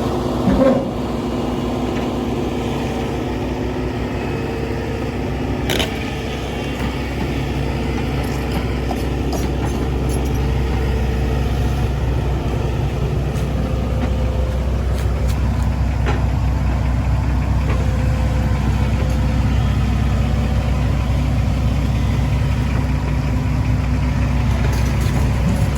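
Heavy diesel machinery running steadily, with a short knock about half a second in and a sharp clank near six seconds; the engine note grows a little louder and steadier after about seven seconds.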